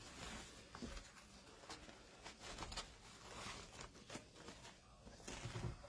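Wired ribbon and starched cotton fabric rustling and crinkling faintly as they are looped and pressed onto a dowel bow maker, in short irregular bursts.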